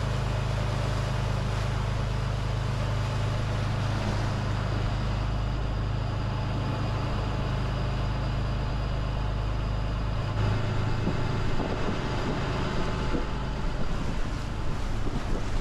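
Fire rescue boat's engines running steadily under way, a low drone mixed with the rush of the churning wake. About ten seconds in the lowest part of the drone drops back and gusty wind and water noise on the microphone come forward.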